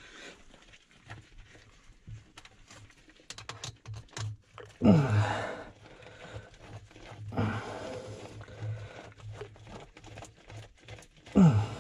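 Hands working a band off the float switch cord: scattered clicks, rattles and rustling. Three short falling grunts of effort come about five, seven and a half, and eleven and a half seconds in, the last the loudest.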